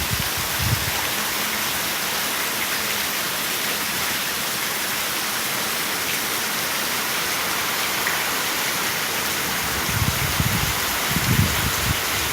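Rain falling steadily, an even hiss. Low, uneven rumbles come in about ten seconds in.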